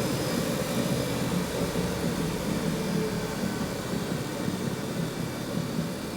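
Horizon 7.0 AT treadmill running at speed 10: the motor and moving belt hum steadily, with a rapid ticking whose rate rises with belt speed. The tick is a fault that appeared only after a few days of use.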